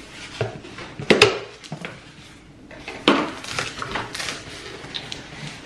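Cardboard shipping box being cut open and its flaps pulled back. There are sharp knocks and clinks about a second in and again about three seconds in, with cardboard scraping and rustling between them.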